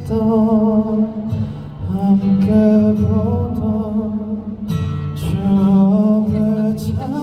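A male singer singing a slow song with instrumental backing, holding long notes in phrases with short breaks between them.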